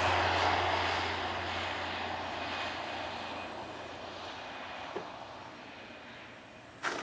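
Crop-dusting airplane's engine and propeller fading steadily as it flies away after a low spraying pass, down to a faint distant drone. A brief sharp thump near the end.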